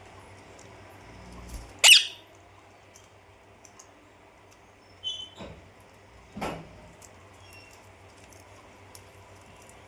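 Pet parrot calling: one loud, shrill squawk about two seconds in, then two softer calls a few seconds later.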